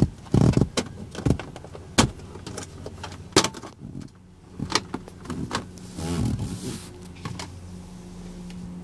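Plastic dashboard trim panel being pried off with a trim removal tool: a string of sharp clicks and snaps as its retaining clips pop free, then the panel rustling and scraping as it is pulled away. A low steady hum comes in near the end.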